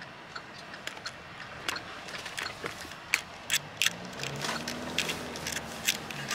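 Irregular sharp ticking clicks, a few every second, over a low steady hum, with a faint low murmur about four and a half seconds in.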